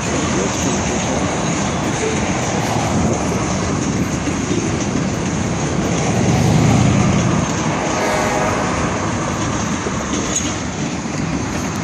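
Freight train of covered hoppers and tank cars rolling past: a steady noise of steel wheels on the rails, swelling a little about halfway through.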